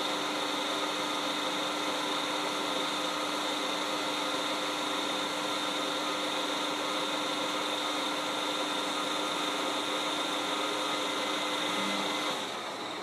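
Colchester CNC 2000L lathe running, a steady mechanical whine and hum from its spindle and drives while the tool feeds in across the work. About twelve seconds in the tones cut out and the sound dies away as the cycle ends and the machine winds down.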